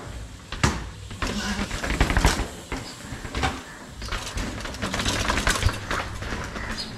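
Mountain bike riding down stone steps: a run of clattering knocks and rattles as the tyres drop off each step, loudest about half a second in, around two seconds in and again about five seconds in, as the bike comes close.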